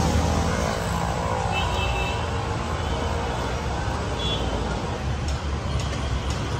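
Steady rumble of road traffic, with a few light clicks near the end.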